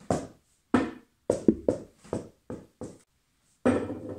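A small ball bouncing: a string of sharp knocks a fraction of a second apart, then a louder, longer knock with some ringing near the end as it drops into a drinking glass.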